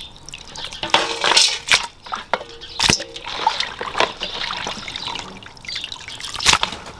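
Raw camel meat pieces being lifted out of water and dropped into a stainless steel colander, with water trickling and dripping off them, and two sharp knocks, about three seconds in and near the end.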